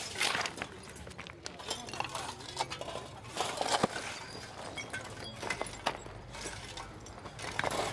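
Scattered sharp clinks, knocks and scrapes of spades and debris being worked through broken concrete and glass rubble.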